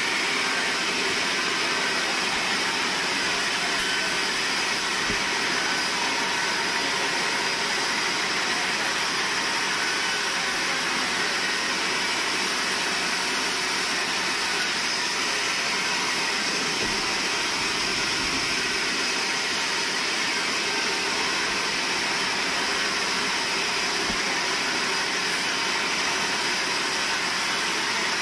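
Sawmill band saw running as its blade rips lengthwise through a large squared log: a steady, unbroken machine noise.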